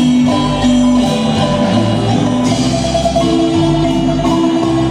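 Marimba band playing live during a sound check: a marimba melody over a low bass line, amplified through the PA.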